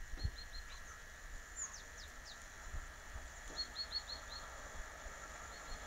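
Small bird calling: two quick runs of four or five short high chirps, with a few downward-sliding notes between them, over a faint low rumble.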